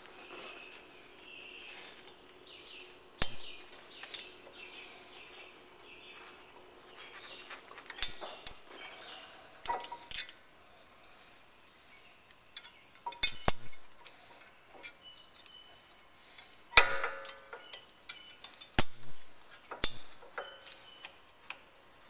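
Scattered metallic clicks and clinks of a brake pad retaining pin and spring clip being worked into a Porsche 997 rear brake caliper by hand. The loudest knocks fall about 3 seconds in and near 17 seconds.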